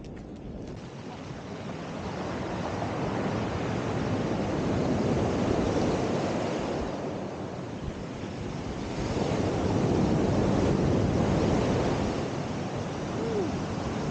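Sea waves washing in, a rushing noise that swells to a peak about five seconds in and again about ten seconds in.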